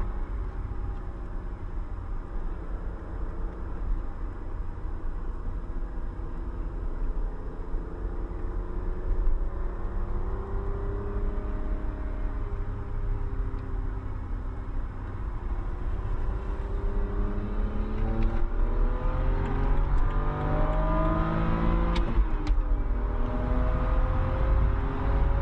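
BMW E91 325i's straight-six engine pulling at Autobahn speed over a steady rumble of road and wind noise. The engine note holds fairly steady at first, then climbs under acceleration, dips briefly about four-fifths of the way through as it shifts up, and climbs again.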